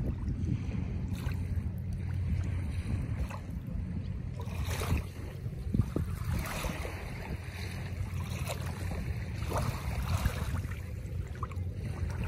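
Wind rumbling on the microphone at the water's edge, with faint small ticks and splashes of gentle lapping water.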